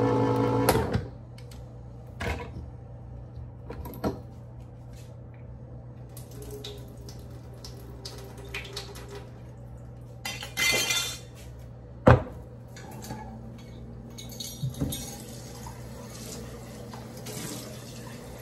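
Electric can opener's motor humming as it cuts a can, stopping about a second in. Then light kitchen clatter as the opened can is handled on the counter, with a few knocks and one sharp knock about two-thirds of the way through.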